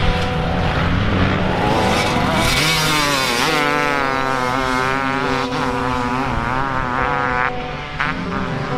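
Motocross bike engine revving hard as the bike approaches, the revs climbing and dropping several times with the gear changes, then easing off about seven and a half seconds in.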